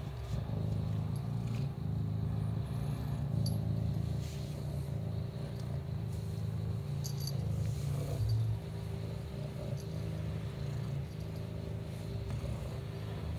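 Ginger domestic cat purring steadily as it is stroked: a continuous low, rapidly pulsing rumble.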